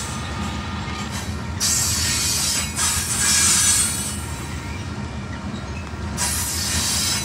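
Covered hopper cars of a grain train rolling past with a steady low rumble. Surges of high-pitched wheel noise come about two seconds in, again at three seconds, and near the end.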